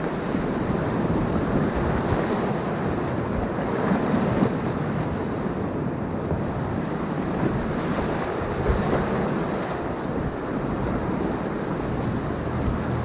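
Whitewater river rushing steadily around a kayak, with wind buffeting the microphone and a few brief low knocks.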